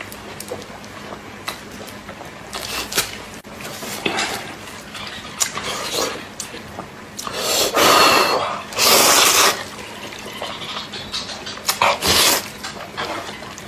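Close-up eating sounds: crisp crunching bites of cucumber, then loud wet slurps as sauce-coated noodles are sucked into the mouth, two long slurps a little over halfway through and another near the end.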